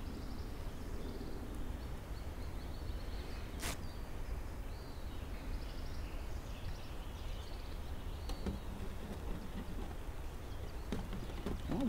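Outdoor ambience: a steady low rumble with faint bird chirps and trills high above it, and one sharp click about four seconds in. A few light clicks of a utensil against the frying pan come near the end.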